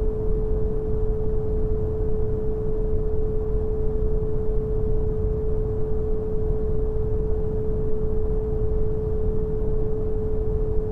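Synthetic brown noise, a deep even hiss heavy in the bass, with a single pure 432 Hz tone held without change over it.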